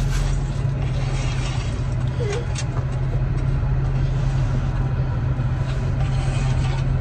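Steady low hum of a car's engine idling, heard inside the cabin, with a couple of faint clicks about two and a half seconds in.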